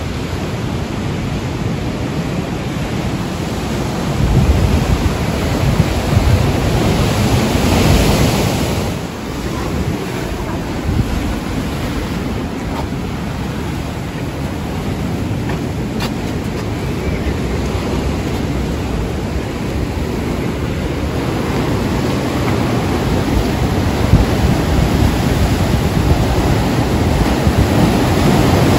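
Sea surf washing and breaking against rocky cliffs below, mixed with wind buffeting the microphone; a steady rushing noise that swells and eases.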